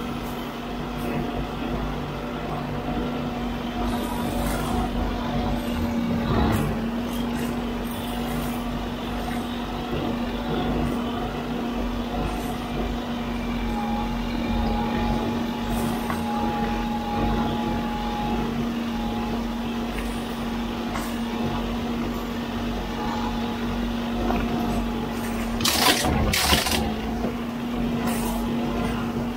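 Huddig 960C6 backhoe loader running with its arm-mounted brush cutter spinning as it mows roadside grass and brush: a steady machine drone with a constant hum. Near the end come two brief, loud, noisy bursts.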